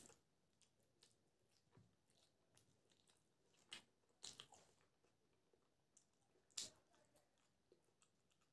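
Faint, close-miked chewing of raw green chillies and biryani, with a few sharp crunches as the chillies are bitten: two around the middle and one about three quarters of the way in.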